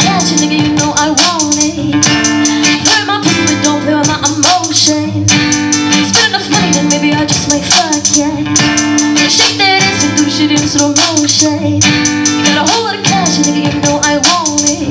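Live looped music: layered vocal and guitar loops repeat from a Boss RC-30 loop pedal over a steady percussive beat, with a woman singing into a handheld microphone over them.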